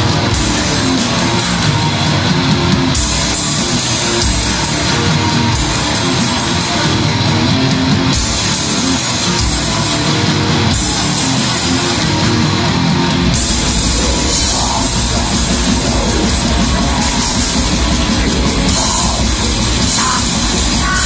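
Heavy metal band playing live and loud: distorted electric guitars, bass and drum kit, with the low end growing heavier a little past halfway.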